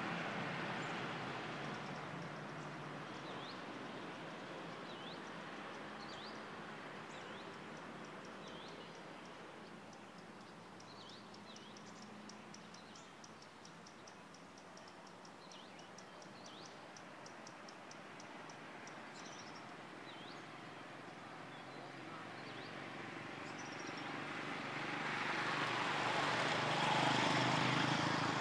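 Road traffic: a vehicle's engine and tyre noise fades away at the start, and another vehicle approaches and passes near the end, loudest about a second before the end. In the quieter middle, birds chirp and a fast ticking trill runs for several seconds over a faint outdoor background.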